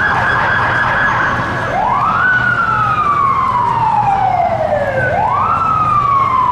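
Emergency vehicle siren in a wail: twice it sweeps quickly up and then slides slowly down over about three seconds.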